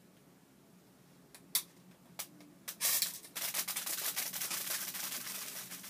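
Packaging being handled during an unboxing: a few sharp clicks, then about three seconds of dense crinkling and rustling.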